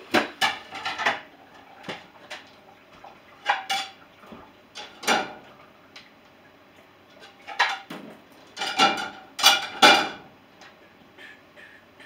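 Plates and dishes clinking and clattering as a dishwasher is unloaded and the dishes put away: scattered sharp knocks with short ringing, the loudest cluster about nine to ten seconds in.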